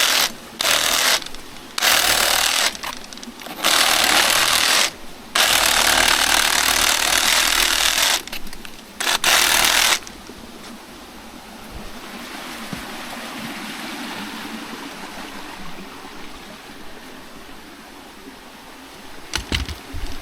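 Reciprocating saw fitted with a 12-inch pruning blade, cutting up a banana pseudo-stem in about six short runs that start and stop over ten seconds. After that it goes quiet, with a couple of sharp knocks near the end.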